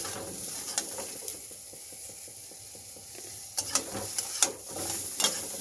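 Pieces of green plantain and potato sizzling in hot oil in a steel wok, stirred with a metal spatula. The spatula clicks and scrapes against the pan several times, most often in the second half.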